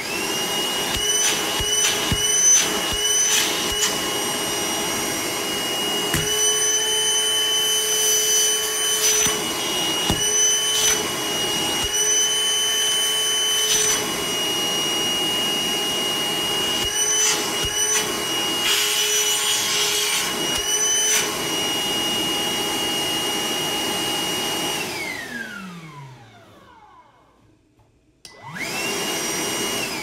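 Milwaukee M18 2-gallon cordless wet/dry vacuum running with a steady high whine, its note shifting briefly now and then. About 25 seconds in it is switched off and the motor winds down with a falling whine. It starts up again shortly before the end and is switched off once more.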